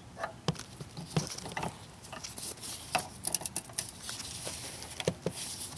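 Irregular small clicks and scrapes of hands and a screwdriver working a fuel line's quick-connect fitting and retainer clip loose from a car's fuel filter.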